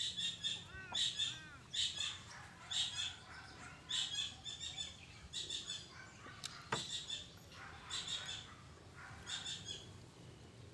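Birds chirping over and over, a short burst of high calls about once a second. One sharp click sounds a little past the middle.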